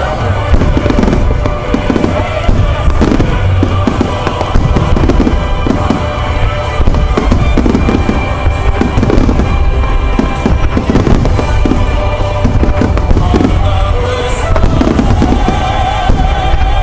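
Fireworks display: aerial shells bursting in dense, rapid succession, booms and crackle overlapping without a pause.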